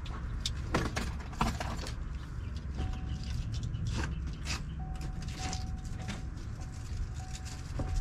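Scattered light clicks and knocks over a low steady rumble, with a faint thin beeping tone coming and going from about three seconds in.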